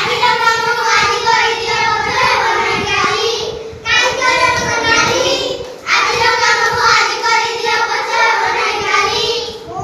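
A group of young children singing an Odia rhyme together, in phrases broken by short pauses about four and six seconds in.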